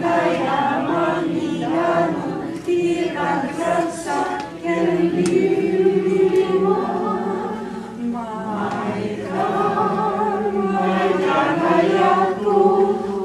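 A group of voices singing together, holding long sustained notes.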